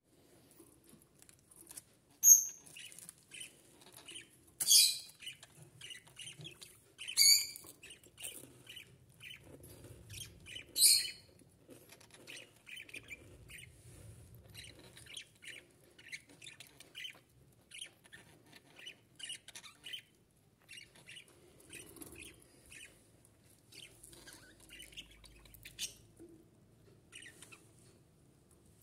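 Pet budgerigars chirping and warbling in quick, short notes, with four loud, sharp calls about 2, 5, 7 and 11 seconds in.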